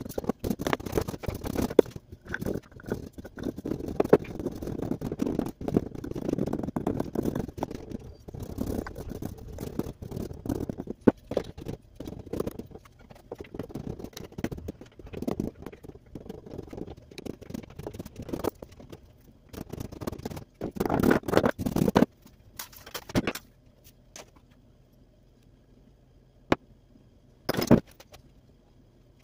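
Wooden hand rammer tamping molding sand into a wooden casting flask: a busy run of dull thuds and gritty scraping. The sound drops away after about twenty-three seconds to a low hum with two sharp knocks near the end.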